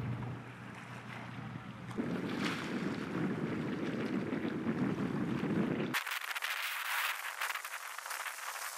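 Wind buffeting the microphone over waves at the shore, in separate cut-together sections. The sound changes abruptly about two and six seconds in, and after the second change the low rumble drops out, leaving a crackly hiss.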